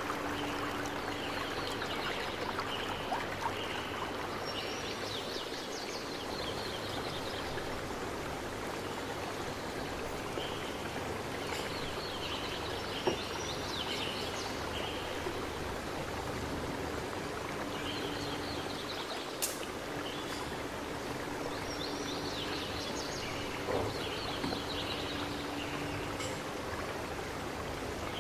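Steady rushing background noise, with small birds chirping in short bursts several times and an occasional light click.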